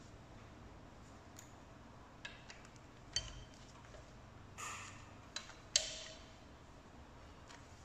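Sharp metallic clicks and clinks of a socket and long breaker bar on the cylinder-head bolts of a VW 1.8 TSI engine, during the 90-degree angle-tightening of the head bolts. About half a dozen taps from about two seconds in, the loudest near the end, ringing briefly.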